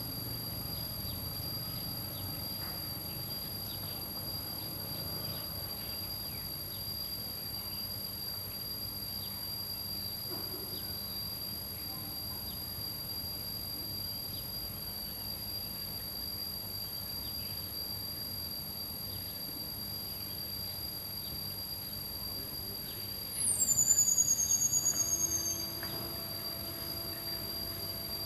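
A steady, high-pitched insect trill runs throughout. About three-quarters of the way through, a loud high whistling squeal drops sharply in pitch, then wavers slowly lower for about two seconds.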